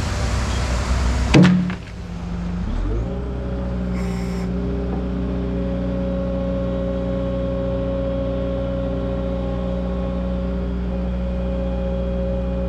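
A sharp knock, then a motor or engine spins up and settles into a steady, even hum.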